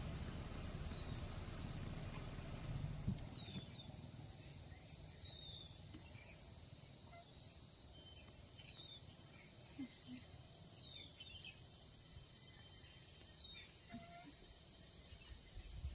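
Steady high-pitched insect chorus of crickets or cicadas, with scattered short faint chirps over it. A low rumble dies away about three seconds in.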